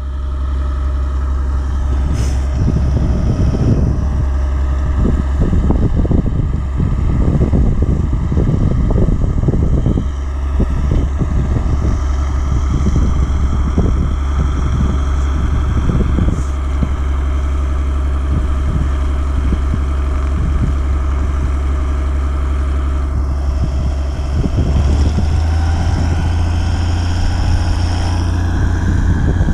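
Helio Courier's piston engine and propeller running steadily on the ground, a strong low drone with irregular buffeting over it; near the end the engine note rises as power comes up.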